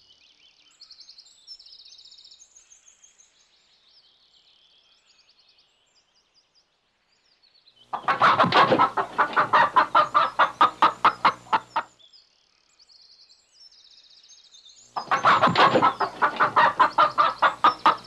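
Domestic hens clucking in two loud bouts of rapid, repeated clucks, about six a second, each lasting some four seconds. Before and between the bouts, small birds chirp faintly.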